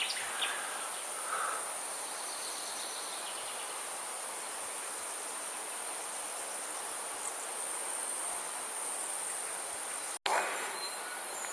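A chorus of insects in summer woodland making a steady, high-pitched chirring drone that does not let up. The sound drops out for a split second near the end.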